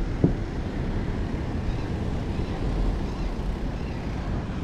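Steady low rumble of wind on the microphone of a moving mountain bike, with one short sharp knock just after the start.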